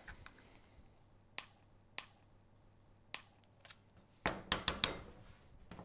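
Metal spoon clinking against a glass jar and a ceramic bowl while soft cheese is scooped out: a few single clicks, spaced about a second apart, then a quick run of louder clinks about four and a half seconds in.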